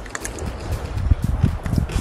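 Wind buffeting the microphone on open water, with irregular low thumps and splashes and no steady engine note.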